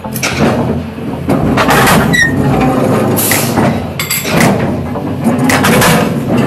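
Heavy metal-forming press running with a steady low hum, with several noisy surges of steel plate grinding and clanking as it is bent over the die.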